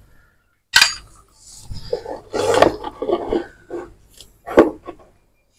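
Metal parts clinking and knocking as the gears and shafts of a split Yamaha Vixion motorcycle gearbox and crankcase are handled. There is a sharp click about a second in, a cluster of clatter in the middle, and two more clicks near the end.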